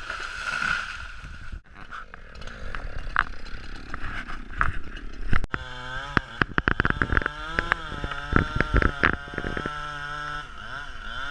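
An engine running, its pitch rising and falling as it revs up and down, with a single loud knock about five seconds in and frequent clicks and thumps after it.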